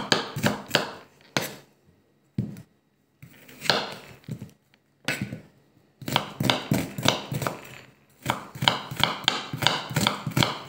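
Chef's knife dicing an onion on a wooden cutting board: quick, even knocks of the blade on the board, about four a second, in runs broken by a few short pauses.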